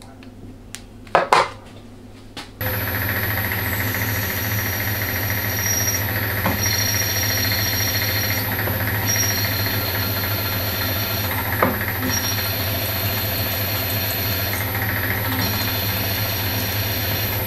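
A few clicks, then a workshop machine drill switches on about two and a half seconds in and runs steadily with a low hum and a high whine while drilling aluminium plate. A higher cutting note comes and goes every two to three seconds.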